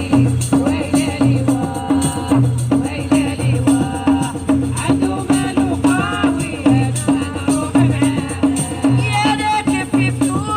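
Folk-style music with a steady drum beat and a shaker rattle, a gliding vocal melody over it.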